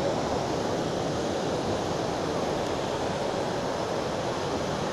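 Surf breaking and washing up a sandy beach: a steady rush of waves with no distinct events.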